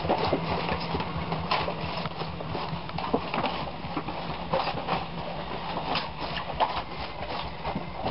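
Rapid, irregular knocks and scuffs of footsteps and a cardboard box costume bumping as a child in it walks across a hard floor.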